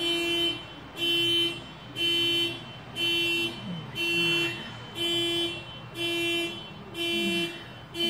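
Car alarm blaring the car's horn in a steady pattern, about one half-second honk every second.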